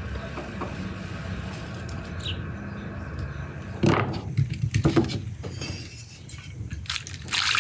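Several sharp clinks and knocks of glass or ceramic kitchenware being handled, then water starting to run near the end.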